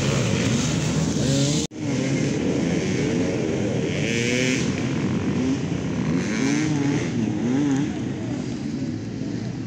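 Several off-road race motorcycles, enduro dirt bikes, revving, their engine notes rising and falling over and across one another. The sound cuts out abruptly for a moment a little under two seconds in, then the revving carries on.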